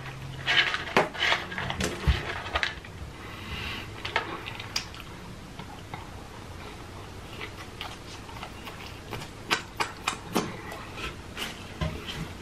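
Close-miked mukbang eating: chewing fried chicken nuggets, with wet mouth clicks and crunches. They come in clusters about a second in and again around ten seconds in.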